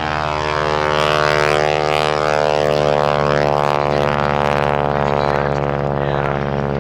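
Stearman biplane's radial engine and propeller droning steadily overhead in flight, the pitch drifting slightly.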